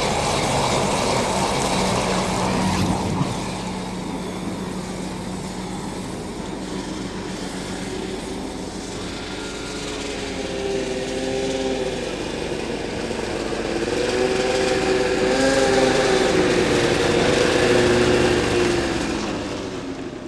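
Gas flames roaring steadily, loudest in the first few seconds. From about nine seconds in, several sustained, slightly wavering tones of a fire organ (pyrophone) sound together over the roar and swell louder toward the end.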